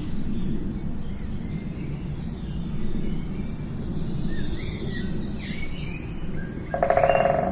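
Small birds giving short, scattered chirps over a steady low outdoor rumble. Near the end comes a louder, buzzy pitched call lasting under a second.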